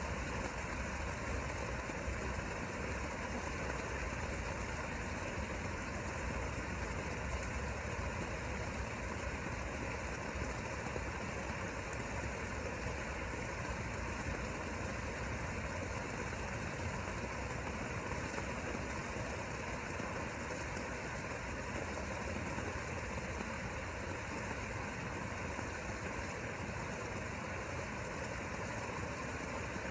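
Steady, unchanging mechanical hum and hiss of a motor running continuously.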